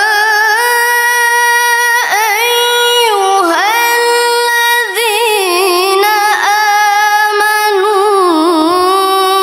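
A young woman's voice in melodic Quran recitation (tilawah): long drawn-out phrases held on sustained notes with rippling, wavering ornaments and brief breaks between them.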